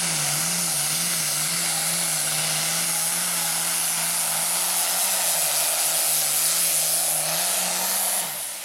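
Turbocharged diesel International Harvester pulling tractor at full throttle dragging the weight sled: a steady, wavering engine note under a loud hiss. The sound drops away shortly before the end.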